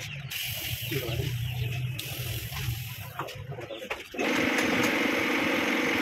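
Electric motor of a tyre repair machine humming low with scattered light clicks, then a louder steady machine drone starts abruptly about four seconds in.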